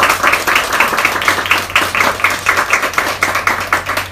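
A small audience clapping, many hands at once in a dense, even patter that keeps going through the blackout between sketches.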